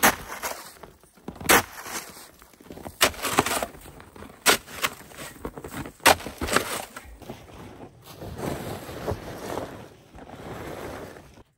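Metal snow shovel chopping and scraping at icy packed snow, with a sharp scrape about every second and a half. Near the end come softer crunching and shuffling sounds.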